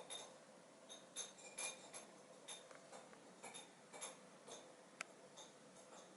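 Keys of a 1951 Smith-Corona Sterling portable manual typewriter striking in slow, irregular typing: faint sharp clicks about a second apart, with one crisper click about five seconds in.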